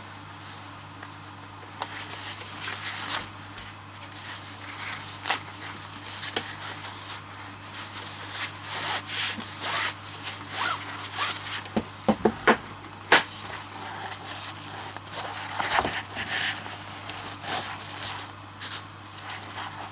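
Hands handling the inclinometer and its packaging: irregular rubbing and rustling with scattered clicks, and a quick cluster of sharp taps about twelve seconds in.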